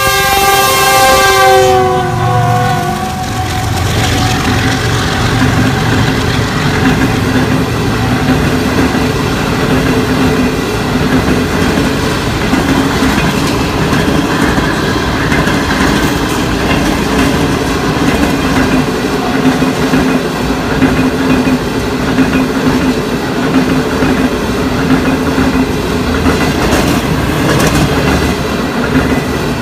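Passenger train horn sounding in a chord until about two and a half seconds in. Then the Green Line Express coaches roll past close by in a steady rumble with wheel clatter, their wheels throwing water off the flooded track.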